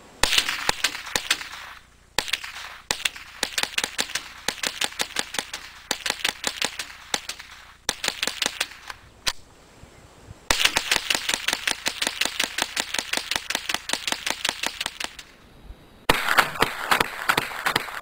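Mossberg 715T .22 LR semi-automatic rifle firing rapidly, several quick strings of sharp shots at about four to five a second, separated by short pauses.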